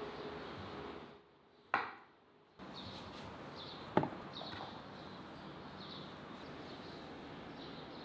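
Two sharp wooden knocks, typical of a knife or utensil striking a wooden cutting board, the first about two seconds in and the louder one about four seconds in, over a steady background hiss that drops out briefly near the start. Faint short high chirps repeat about every half second in the second half.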